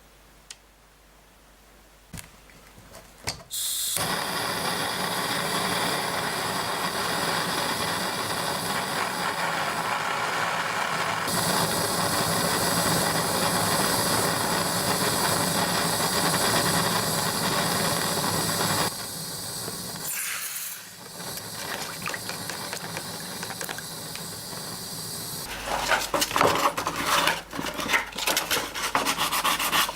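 A few light clicks, then an electric power tool starts about four seconds in and runs steadily with a whirring hiss. It drops quieter with a brief dip a little past the middle. Near the end come irregular scraping and rubbing sounds, as of metal being worked.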